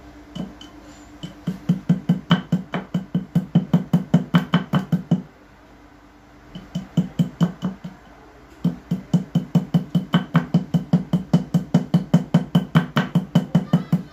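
Rapid repeated knocking of a small hand tool against a plastic Type-C charger, about five strikes a second, in three runs with two short pauses, as it is battered to break its casing open.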